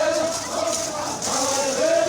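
A crowd of men chanting and shouting together, many voices overlapping without pause: the group chanting of an Iraqi tribal 'arada procession.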